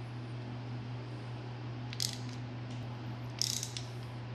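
Ratchet clicking in two short bursts, about two seconds in and again near the end, as a universal caliper wind-back tool screws the rear caliper's rotating parking-brake piston back into its bore. A steady low hum runs underneath.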